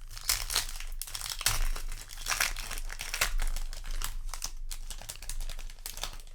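A foil booster-pack wrapper crinkling and crackling in the hands as it is handled and torn open.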